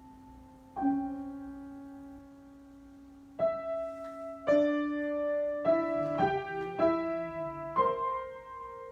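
Slow, sparse improvised piano playing: single notes and soft chords struck a second or more apart and left to ring, coming a little closer together in the second half.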